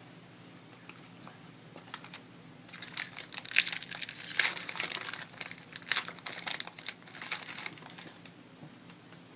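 Trading-card pack wrapper being torn open and crumpled: dense, crackly crinkling for about five seconds, starting about three seconds in.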